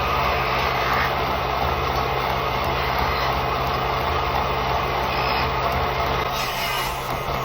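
Wood lathe running steadily: an even motor hum with a steady hiss.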